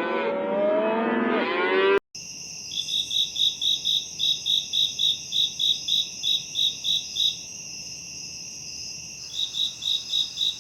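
Cattle mooing, several calls overlapping. After an abrupt cut about two seconds in, a steady high insect chorus with a pulsing chirp about four times a second, like crickets. The chirping pauses for a couple of seconds and then starts again.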